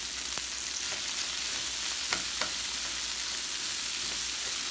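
Sliced onion and strips of green and red bell pepper sizzling steadily in olive oil in a skillet as they are stirred with tongs, with two sharp clicks a little over two seconds in.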